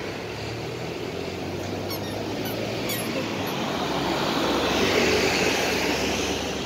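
Road traffic: a passing vehicle's noise builds to a peak about five seconds in, then eases off.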